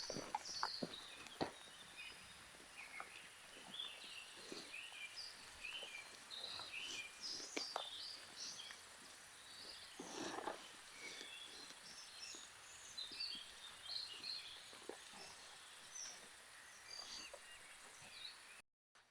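Several birds chirping and calling in quick, varied short notes, with scattered clicks and rustles. The sound cuts off suddenly near the end.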